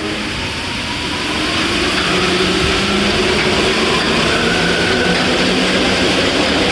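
Rubber-tyred Alstom MP14 metro train running through a tunnel, heard from inside the front car: a loud, steady rumble with faint humming tones from the drive, growing louder over the first two seconds and then holding steady.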